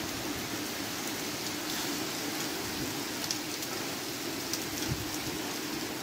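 Heavy rain pouring onto puddled, muddy ground, a steady hiss with a few sharper drips and splashes.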